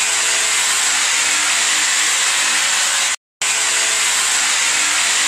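Electric hammer drill running steadily as it drills into a tiled wall, making holes for the wall plugs that take a wall-hung toilet's mounting bolts. It breaks off for a split second about three seconds in.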